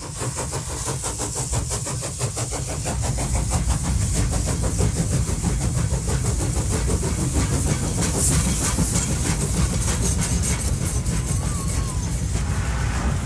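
Train running at speed, heard from on board: a steady low rumble with a rushing hiss and a fast flutter running through it.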